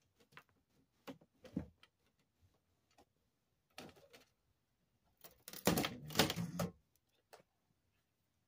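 Scattered clicks and knocks of hands pulling wires and plastic connectors on a flat-screen TV's metal chassis, with a louder cluster of clattering about five to seven seconds in.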